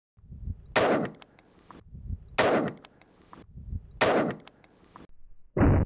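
Three shots from a 5.56 'Buggy 15' rifle, about a second and a half apart, each with a short echo. Near the end the sound switches abruptly to a loud, dull rushing noise.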